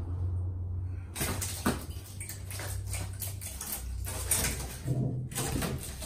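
Freshly laid fibreglass (GRP) body panel being flexed and pulled free of its mould: a run of sharp crackles and creaks as it releases, starting about a second in.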